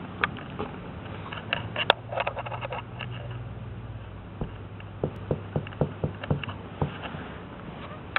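Bernese mountain dog pawing and biting at a cat-teaser pom-pom on carpet: scattered light taps and clicks, a quick run of clicks about two seconds in, then a string of soft thumps in the second half, over a faint steady low hum.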